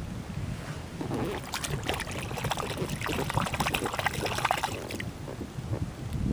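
Water splashing and dripping beside a kayak: a run of small splashes and drips from about a second in until about five seconds in. Low wind rumble on the microphone runs underneath.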